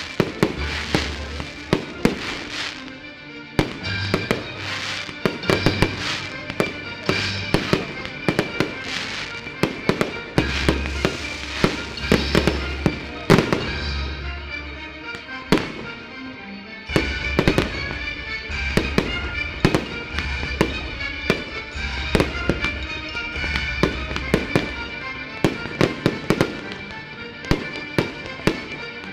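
Fireworks bursting, with many sharp bangs and crackles in quick succession over music with a heavy bass line. The bangs thin out for a few seconds past the middle, then come thick again.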